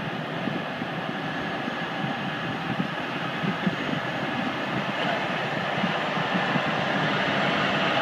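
Road train's diesel engine running as the truck drives through floodwater toward and alongside, growing steadily louder, with water washing around its wheels.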